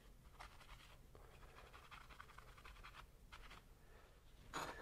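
Faint rubbing strokes of a shop paper towel wiped over the face of a cylinder head, several short passes. A brief louder noise near the end.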